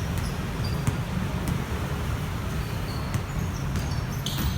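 Steady roadside traffic noise, a low rumble with an even hiss above it, with a few faint clicks and a brief high chirp near the end.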